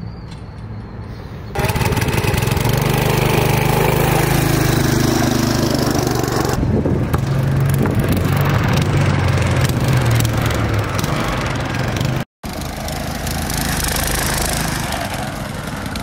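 Small gasoline engine on a homemade shopping-cart go-kart running. It comes in suddenly about one and a half seconds in and holds a steady note, which sags a little after about ten seconds.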